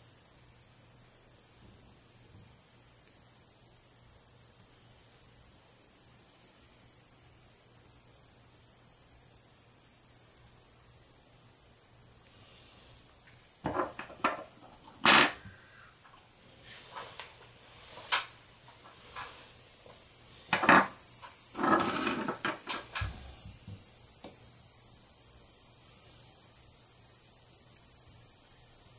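Soldering work at a wooden bench: a few sharp clicks and knocks of a soldering iron and small parts being handled, in a cluster from about 13 to 23 seconds in, over a faint steady high-pitched hiss.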